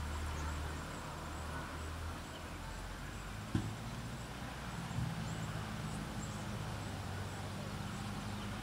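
Motor vehicle engine running with a steady low hum, its pitch shifting slightly partway through, with two short knocks a second and a half apart.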